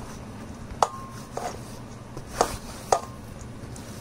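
A plate knocking against the rim of a stainless steel mixing bowl as grated cabbage is tipped in: four sharp knocks, the first with a brief metallic ring.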